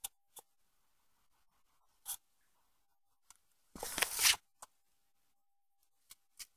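A few faint, short ticks and taps, then about four seconds in a brief rustle and scrape of a sheet of drawing paper being swept off the desk.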